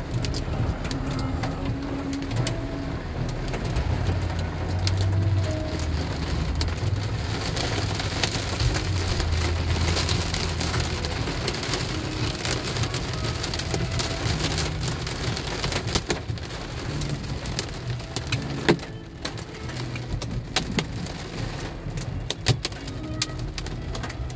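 Heavy rain pelting the roof and windshield of a car, heard from inside the cabin as a dense patter of sharp hits over a low steady hum, with one louder knock past the middle.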